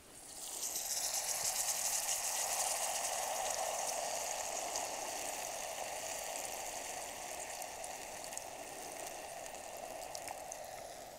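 White wine sizzling as it is poured into a hot Lodge cast-iron camp Dutch oven onto sautéing onions, garlic and portobello mushrooms. The hiss swells in the first second or two, then slowly dies down.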